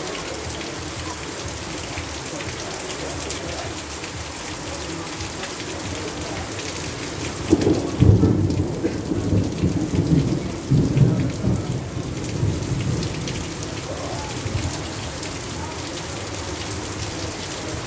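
Steady heavy rain falling. A low roll of thunder comes in about halfway through, loudest at its start, and rumbles away over the next few seconds.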